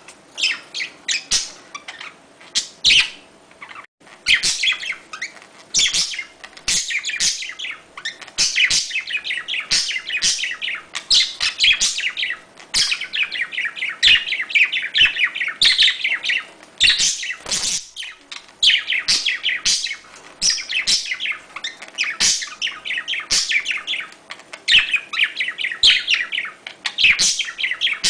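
A pair of budgerigars mating, giving a fast, unbroken run of high chirps and chattering warble.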